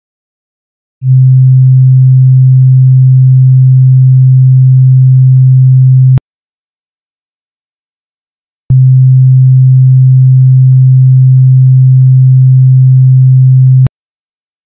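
A loud, low, steady electronic hum tone, one pure pitch, sounding twice for about five seconds each with about two and a half seconds of silence between, each cut off suddenly. It is the cue tone of an eye exercise: eyes are squeezed shut while it sounds and opened in the silences.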